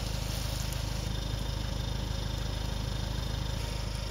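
A small engine running steadily with a fast, even pulse, under the hiss of a hose nozzle spraying water.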